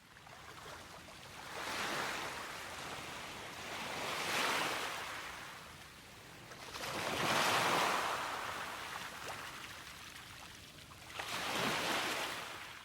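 Sea waves washing in, four surges of wash that each swell and fade, the loudest about halfway through.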